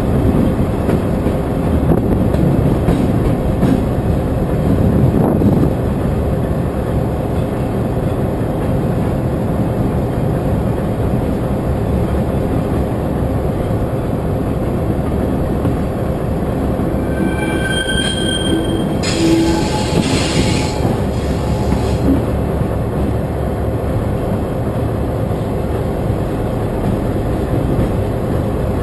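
Freight train rolling slowly through a yard during shunting, its wheels giving a steady rumble on the rails. About two-thirds of the way through, the wheels squeal briefly in several high tones, followed by a hiss lasting about three seconds.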